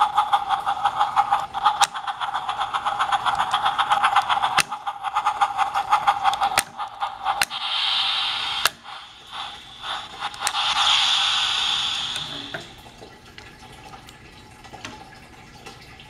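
Battery-powered Trackmaster Spencer toy engine running on plastic track: a steady motor whine with fast wheel clatter, and a few sharp clicks. About halfway through come two hissing bursts, the second lasting a couple of seconds, and the sound then drops to a quieter running noise.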